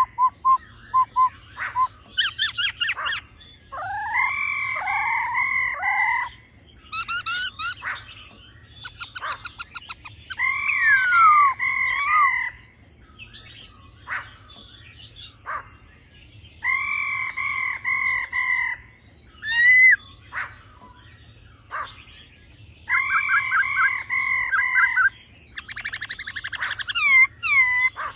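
Black-throated laughingthrushes calling: loud phrases of rich, paired notes, each about two seconds long, repeat every few seconds, with rising whistles and fast rattling trills between them. The rattling trills fit the female's 'ro' call, laid over a male's wild-type song.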